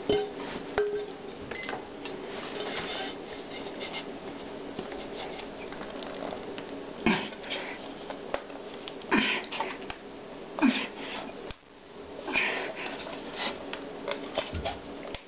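A thick frying pan being rolled and slid over a person's body and hands: irregular rustling and brushing against clothing, small knocks, and several louder swishes in the second half, over a steady low hum.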